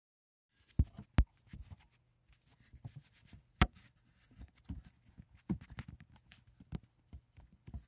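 Handling noise of a phone being picked up and set in place: irregular knocks, taps and rubbing on the microphone, with three sharp knocks in the first four seconds.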